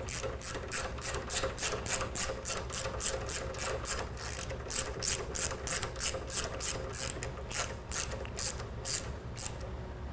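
Hand ratchet wrench clicking as a bolt is run in and tightened to secure a motorcycle fuse block plate, about four clicks a second, stopping shortly before the end.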